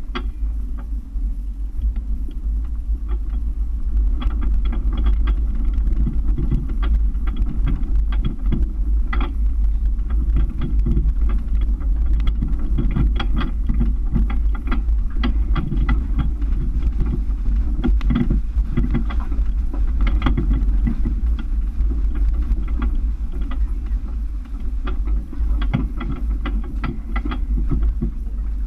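Toyota FJ Cruiser's 4.0-litre V6 pulling the truck slowly over a rocky dirt trail, heard from a hood-mounted camera: a steady low rumble with frequent short knocks and rattles as the truck jolts over rocks.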